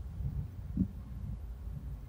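Low handling noise of parts being moved on a workbench, with one soft, muffled thud a little under a second in as the removed adjusting knob is set down on a cloth.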